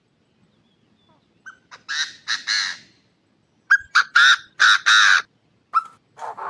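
Chinese francolin calling, played as a trapping lure: two loud clipped notes about two seconds in, then a faster run of four louder ones about a second later, and a short note near the end.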